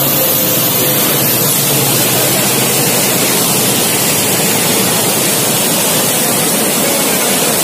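Steady, loud rushing and splashing of floodwater churned up by a passenger train's wheels as the train runs through water covering the tracks.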